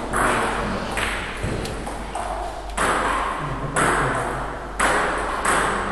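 A table tennis ball being bounced repeatedly, a sharp click about once a second, each ringing out in a reverberant hall.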